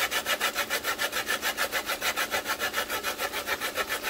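Lemon rind being zested on a metal hand grater: quick, even rasping strokes, several a second.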